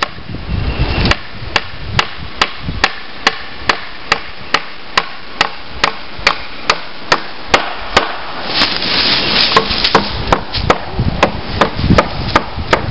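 Hammer blows on a home-built wooden ladder stand, a steady run of sharp strikes about two or three a second, with a brief rustle partway through.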